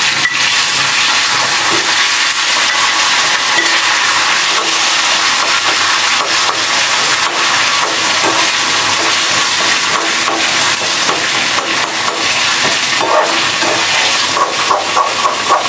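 Khoya (mawa) frying in hot ghee with dry fruits in a steel kadhai, sizzling steadily from the moment it drops in. A slotted steel spoon stirs it, clicking and scraping against the pan near the end.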